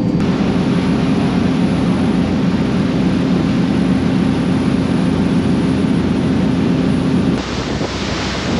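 Fishing charter boat under way: its engine runs at a steady drone over the rush of water from the wake. About seven seconds in, the sound changes suddenly to wind on the microphone and the hiss of open water.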